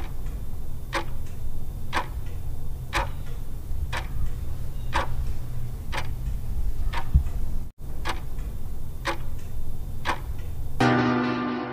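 Countdown-timer clock-ticking sound effect, about one tick a second, over a steady low rumble. It breaks off for an instant about eight seconds in.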